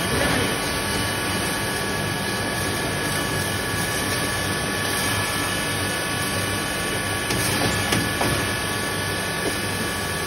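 6.5 HP single-phase electric red chilli grinder running steadily: a constant machine noise with a fixed high whine.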